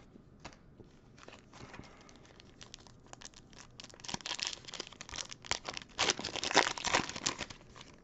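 A foil trading-card pack is torn open and its wrapper crinkled as it is peeled off the cards. There are light handling rustles at first, then louder crinkling from about halfway through.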